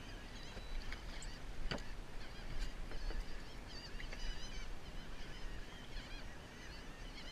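A flock of seabirds calling, with many short high calls overlapping continuously, over a low steady rumble.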